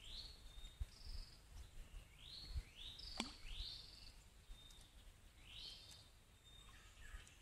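Faint birds calling: short rising chirps repeated about once a second, mixed with brief high single notes. A few low bumps and one sharp click sound beneath them.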